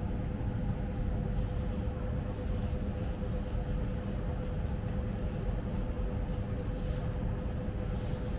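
Steady low rumble with a constant mid-pitched hum, unchanging throughout: background machinery hum of the room.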